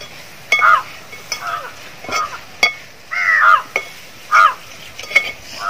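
Crows cawing repeatedly, a loud call every second or so, over the clinks and scrapes of a wire spider strainer stirring chicken filling in a steel pot.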